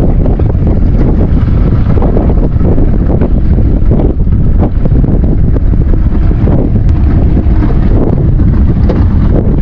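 Strong wind buffeting the microphone on an open fishing boat: a loud, steady, low rumble.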